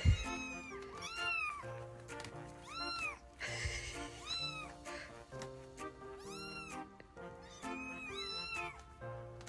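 Young kittens mewing repeatedly, about seven high cries that rise and fall in pitch, over background music. A short thump comes right at the start.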